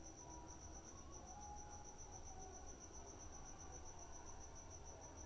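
A cricket chirping faintly in the background in a steady, high, evenly pulsed trill of about eight pulses a second, over a faint low hum.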